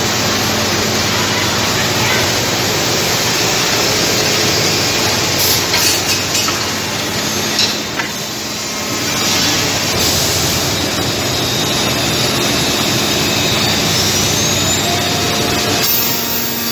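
Woodmaster five-axis CNC router's spindle, set to 13,000 rpm, cutting a curved wooden part: a loud, steady machining noise with a faint hum under it. The noise dips briefly about eight seconds in.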